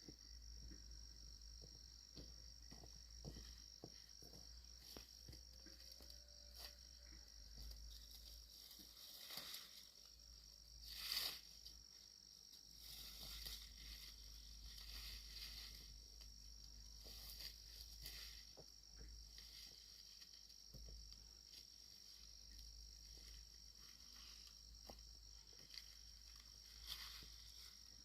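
Faint, steady chirring of crickets or similar insects, with scattered small clicks and one brief louder noise about eleven seconds in.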